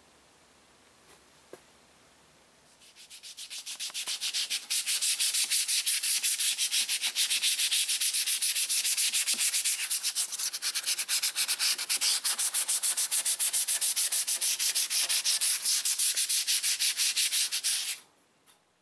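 Sandpaper on a hand sanding block rubbed back and forth in quick, even strokes over cured body filler on a car roof, knocking the filler down before primer. The scratching fades in about three seconds in and stops abruptly near the end.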